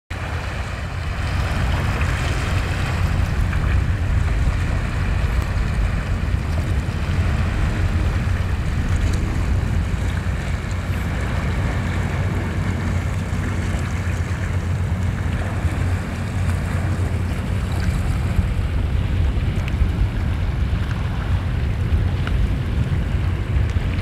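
Wind buffeting the microphone in a steady low rumble, over the gentle wash of shallow sea water around shore rocks at low tide.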